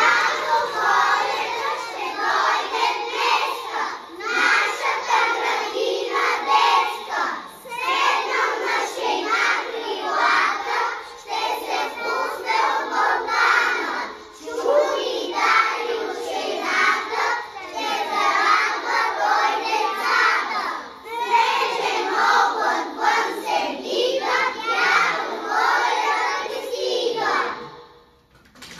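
A group of young children singing together, in sung phrases a few seconds long with brief breaks between them. The song ends just before the close.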